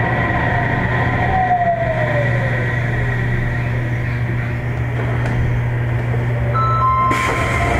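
Sendai Subway 1000 series train's Mitsubishi IGBT-VVVF traction inverter and motors whining as the train brakes into a station, the whine sliding down in pitch over a steady low hum. Near the end a pair of steady higher tones sets in and a hiss comes in.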